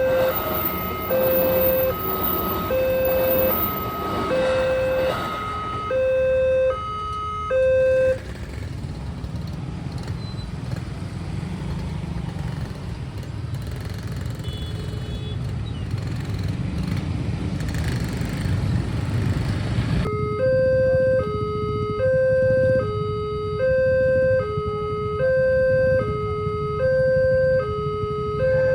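Railway level-crossing warning siren sounding a two-tone hi-lo alarm, switching between two pitches about every two-thirds of a second. About eight seconds in it stops, leaving a low rumbling noise, and the two-tone alarm starts again about twenty seconds in.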